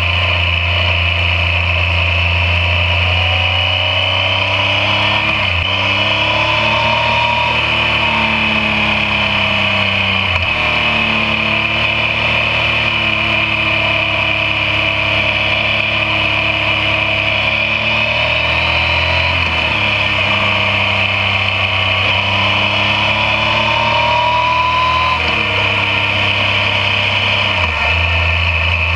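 Yamaha MT-09's inline three-cylinder engine pulling along at road speed. Its pitch rises slowly and then changes abruptly several times as it shifts gear, under a steady high hiss.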